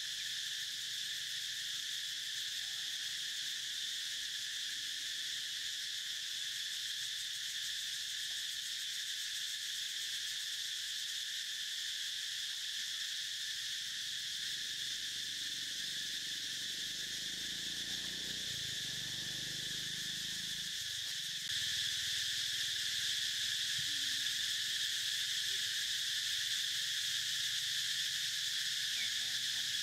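Steady, high-pitched insect chorus of crickets in the forest, its level stepping up a little about two-thirds of the way in.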